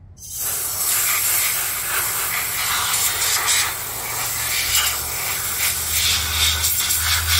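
Compressed-air blow gun on a coiled air hose, blowing a continuous loud hiss of air over a pistol frame to dry it after cleaning. The hiss comes on at the start.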